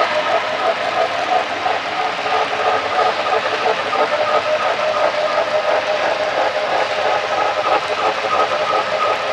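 Model train of tank cars rolling past, its wheels running on the track in a steady, continuous clatter.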